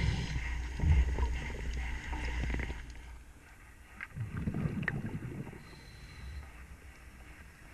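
Underwater working noise during a propeller removal: a low rumble with scattered clicks and knocks, louder for about the first three seconds, then a second swell of rumble and clicks around four to five seconds in before it settles quieter.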